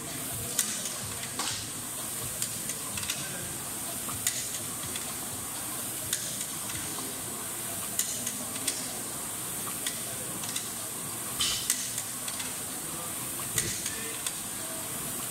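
Air rowing machine's fan flywheel spinning as it is rowed hard, a steady whirring hiss with scattered clicks and knocks.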